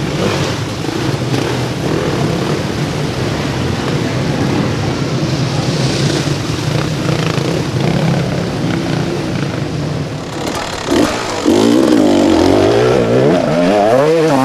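Enduro dirt bike engines running and revving at low speed in mud. Over the last few seconds one engine is revved hard, its pitch swinging up and down repeatedly.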